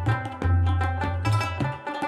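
Background music with a brisk drum rhythm, deep bass notes and pitched instruments.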